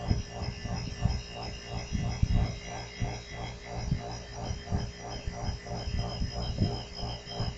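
Homemade high-pressure air compressor built from a salvaged rotary compressor, running steadily as it pumps its tank up past 250 psi. It gives a steady hum with a fast, even pulsing about five times a second, and a few irregular low thumps.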